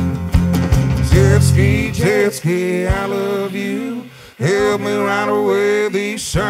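Live band music: acoustic guitar, bass and drums with male voices singing. The band drops away briefly just past four seconds in, then comes back.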